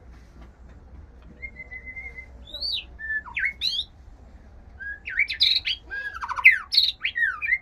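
White-rumped shama (murai batu) singing, a male in breeding condition: clear whistles and quick sweeping notes, starting with a thin held whistle and building to a dense, loud run of varied phrases in the last few seconds.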